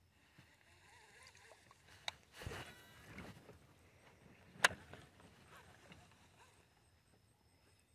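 A fishing cast with rod and reel: a sharp click about two seconds in, a brief swish as the line goes out, then a louder sharp click from the reel a couple of seconds later. Light handling noise runs around them.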